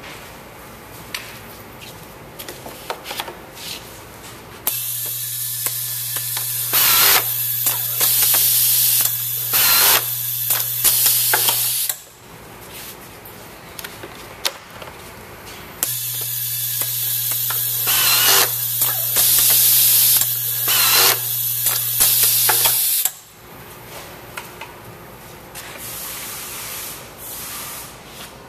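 Automatic tilt-pin inserting and screw-feeding screwdriver machine running two cycles. In each, a vibratory bowl feeder hums steadily for about seven seconds while pneumatic cylinders hiss and clack and the screwdriver drives screws. Between the cycles come quieter handling clicks.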